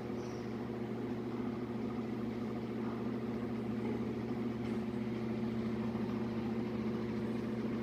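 Steady low machine hum, an even drone that holds one pitch throughout with no other events.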